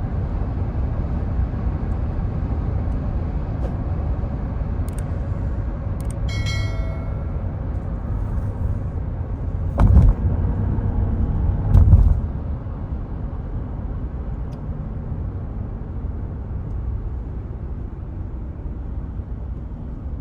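Steady low road and engine rumble heard from inside a car at highway speed. Just after six seconds there is a brief high tone, and about ten and twelve seconds in come two loud low thumps.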